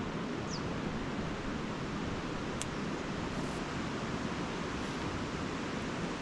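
Steady low rushing outdoor noise, a fluctuating rumble like wind on the microphone, with a faint click about two and a half seconds in as the tent's inner is clipped to its cross pole.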